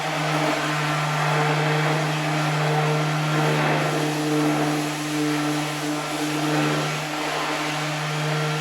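An electric power tool's motor running steadily with a constant hum, dipping slightly a few times as it is worked.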